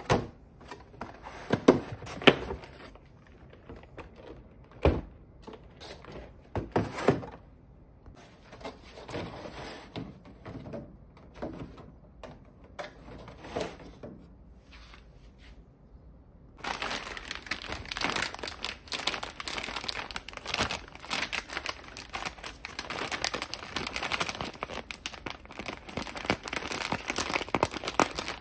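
Clear plastic food tray and snack packets handled: scattered plastic clicks and knocks, then, about halfway through, steady crinkling of plastic snack wrappers being handled.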